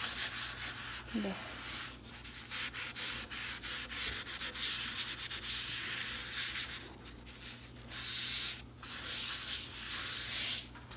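A sponge scourer scrubbing back and forth over a greasy metal stovetop surface, making a hissing rub in repeated strokes with a few short pauses.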